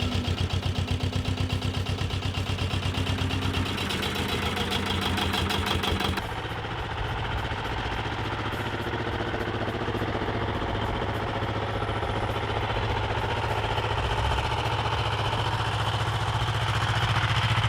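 An engine running with a fast, even pulse. About six seconds in, the sound changes abruptly to a steadier, lower engine drone that grows a little louder near the end.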